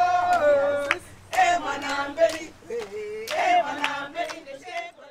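Voices singing long held notes that slide in pitch.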